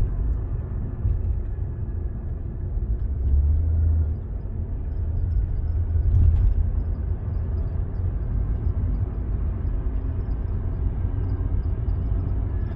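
BMW M235i driving, heard from inside the cabin: a steady low rumble of engine and road. From about five seconds in, a faint thin high-pitched squeal runs over it; this is the light squeal that comes with acceleration and stops when coasting, which the owner places at the front right or front centre.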